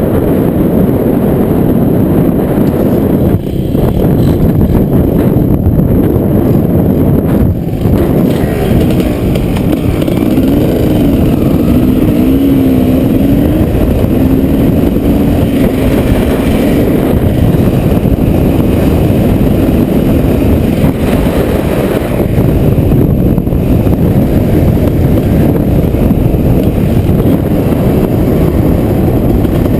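Strong wind of a dust storm buffeting the microphone: a loud, constant low rumble. For several seconds in the middle, a faint wavering hum rises and falls above it.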